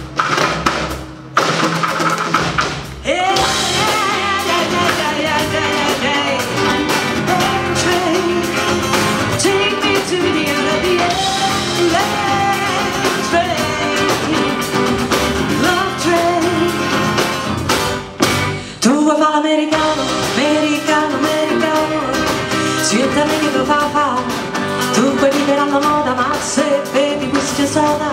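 Live band music: a woman singing over acoustic guitar, electric bass and drum kit. The music breaks off briefly near the start and again about two-thirds of the way through.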